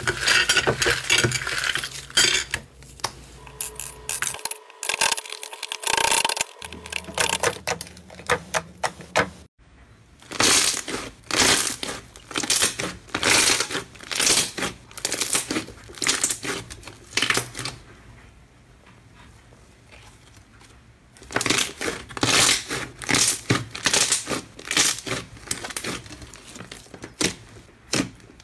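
Hands kneading and squeezing slime: first a teal foam slime worked in a glass bowl with dense crackling and squishing, then a white fluffy slime pressed over and over, each press a short crackling squish about every half second, with a quieter lull in the middle.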